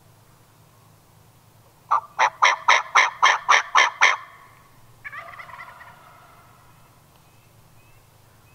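Wild turkey yelping: a run of nine loud, evenly spaced yelps, about four a second. About a second later a softer, rattling call follows.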